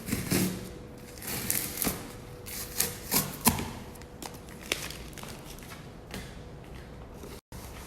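Hands handling and opening a cardboard parcel: irregular taps, rustles and scrapes of packaging, cutting out briefly near the end.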